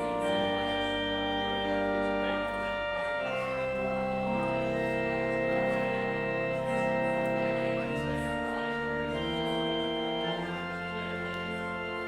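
Church organ playing slow sustained chords that change every second or two over held bass notes.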